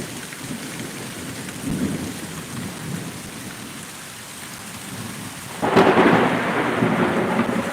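Rain falling with low rolling thunder, then a sudden loud crack of close thunder about three-quarters of the way through that rumbles on.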